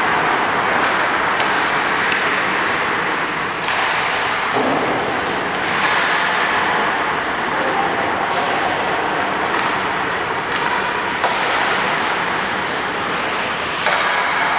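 Steady ice-rink noise of skate blades scraping and carving on the ice, with no voices standing out. The sound changes abruptly a few times where the footage is cut.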